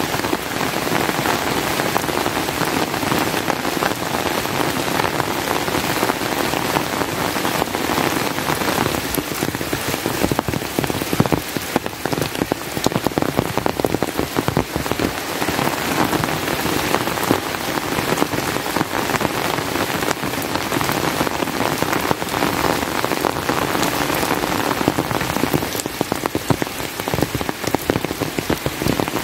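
Steady rain: a dense, even patter of drops with no pause.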